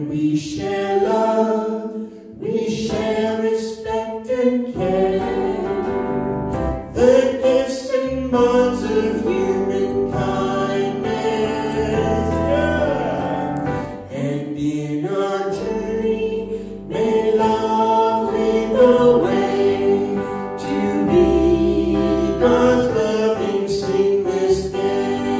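Church choir singing, holding each note for about a second.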